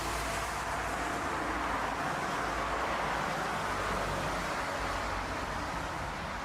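Airliner engine noise: a steady rushing roar that begins to die away near the end.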